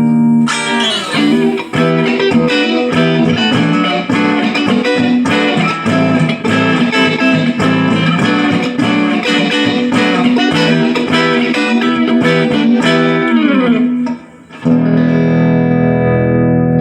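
Electric guitar played through an Artist TweedTone20R guitar amplifier: a chord rings out, then a fast run of picked single notes and chord stabs ends in a downward slide. After a brief pause a new chord is struck about three-quarters of the way through and left to ring.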